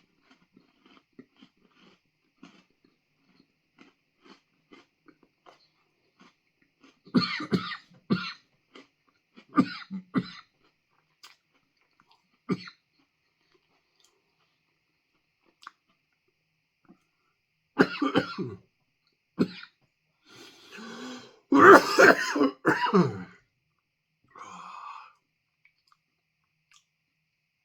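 A man coughing in bursts and clearing his throat, set off by the hot chilli pepper dust from a freeze-dried ice cream sandwich; faint chewing crunches come first, and the longest, loudest coughing fit comes about three-quarters of the way through.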